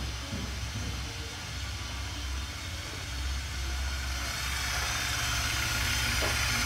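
Steady low mechanical hum, joined about four seconds in by a rushing hiss that grows louder.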